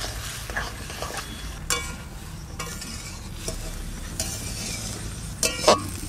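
Flat metal spatula stirring water lily stems in a metal kadai, scraping and clinking against the pan over a sizzle. Two sharper ringing clanks of metal on metal come about two seconds in and near the end; the one near the end is the loudest.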